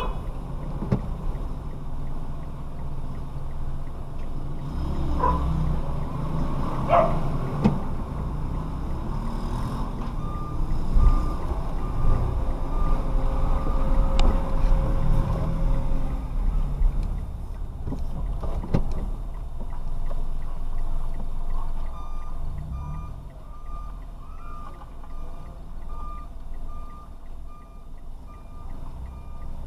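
Vehicle cabin noise picked up by a dash camera's microphone while driving: steady low road and engine rumble, with a few sharp knocks. Runs of short, evenly spaced beeps come in about a third of the way in and again through most of the last third.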